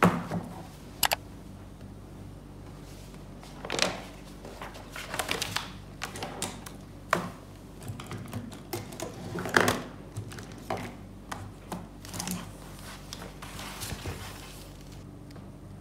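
A notebook and pens handled on a desk: the notebook set down and its cover and pages opened, pens laid on the paper, giving scattered taps, knocks and short paper rustles. The loudest knock comes near ten seconds in.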